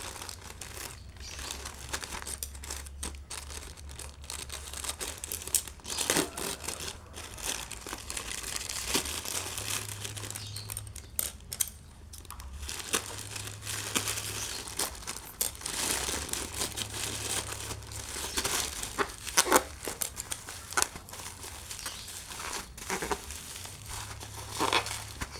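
Parcel packaging being handled and opened: irregular crinkling, crackling and tearing, with sharp snaps now and then. A faint low hum runs underneath.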